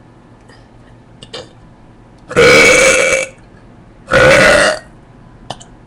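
Two loud, deliberate human burps, brought up without a drink: the first lasts about a second and the second is shorter, with a brief pause between them.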